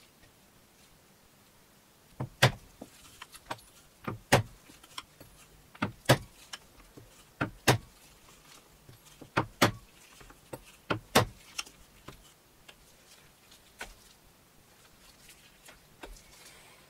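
Mallet striking a steel pricking iron through leather into a plastic cutting board to punch stitching holes. Starting about two seconds in, it gives sharp knocks, mostly two at a time, about every one and a half seconds, then stops, leaving a few faint ticks near the end.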